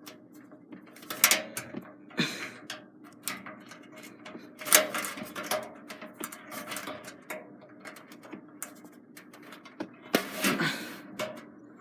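PC parts being handled and pushed into place: irregular plastic and metal clicks and knocks, with a few louder knocks about a second and about five seconds in, and a rustling scuffle near the end.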